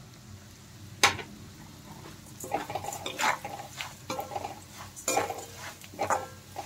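A perforated steel spoon stirring and scraping poha (flattened rice), peanuts and cashews around a metal kadai in oil, in scraping strokes about once a second with a little metallic ringing. There is one sharp clink of spoon on pan about a second in.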